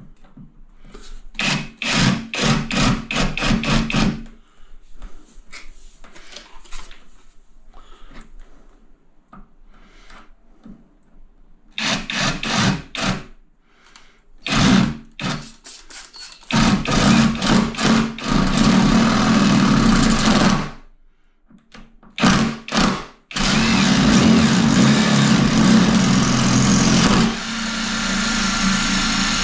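Power drill boring into a very hard wall tile, in short stop-start bursts at first, then running in longer stretches and finally continuously for the last six seconds.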